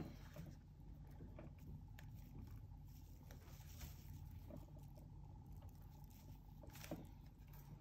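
Near silence: faint rustles and small ticks of fingers pressing a self-adhesive foam gasket strip onto a plastic spoiler, over a low steady hum, with one sharper click near the end.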